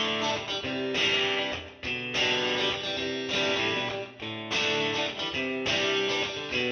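Background music on guitar: chords played one after another, a new one about every second, each ringing on.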